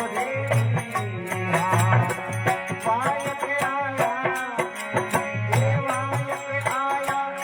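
Rajasthani folk bhajan music: a gliding melody line over a steady drum beat, with regular sharp percussion strokes on top.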